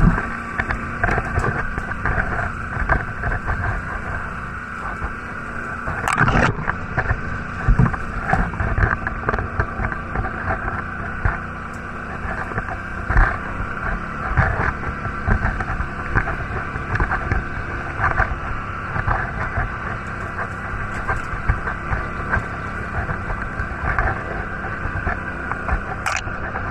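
Quad (ATV) engine running steadily while the machine is ridden over rough forest ground, with frequent knocks and rattles from the bumps. Two sharper knocks come about six seconds in and near the end.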